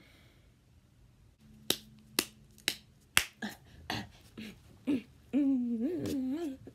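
Fingers snapping in a steady beat, about two snaps a second. Near the end a short wordless vocal phrase follows, wavering in pitch.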